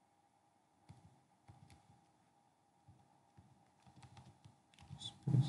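Faint computer keyboard typing: a few scattered keystroke clicks as digits are keyed into a web form. A louder short sound comes near the end.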